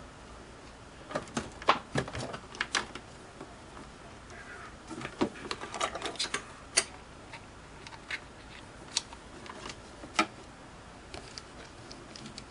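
Irregular light clicks and taps in small clusters: small tools and parts being handled on a workbench.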